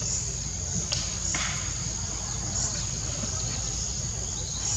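Steady high-pitched insect drone over a constant low rumble, with a couple of short noisy sounds about a second in.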